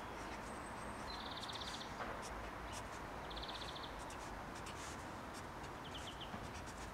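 A small bird gives two short, rapid high trills, about a second in and again about three seconds in, with a few small chirps near the end, over a steady outdoor hush. Faint scratching of a pen writing on paper.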